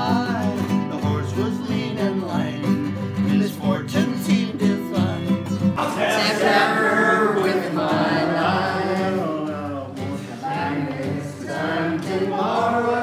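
A man singing while strumming an acoustic guitar. About six seconds in the sound cuts to another recording of a man singing to acoustic guitar, with the voice louder.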